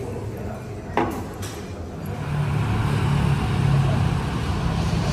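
City street traffic noise with a vehicle engine running low and steady, starting about two seconds in; before it, a single sharp click about a second in.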